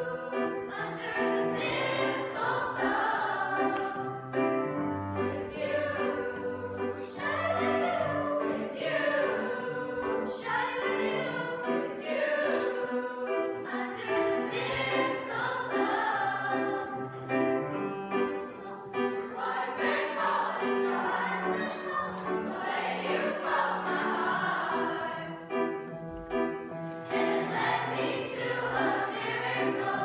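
A youth choir singing a song in parts, with sustained pitched notes.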